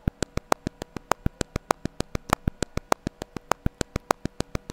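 Glitchy, clicky percussion loop made in Logic Pro by slicing an audio loop with Flex Time, with decay and slice length at minimum, playing back as a fast, even train of short clicks, about ten a second, some louder than others.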